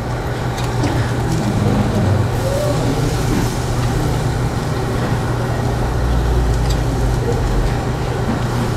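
Steady low drone of a Korean barbecue table grill's extraction hood, with a hiss of beef cooking on the grill and a few light taps of metal tongs as the slices are turned.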